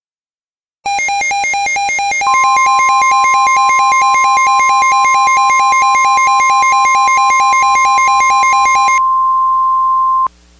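Mock Emergency Alert System attention signal from synthesized electronic tones. A rapidly pulsing, buzzy alarm tone starts about a second in and is soon joined by a steady high tone. The pulsing stops near the end, leaving the steady tone for about a second before it cuts off sharply.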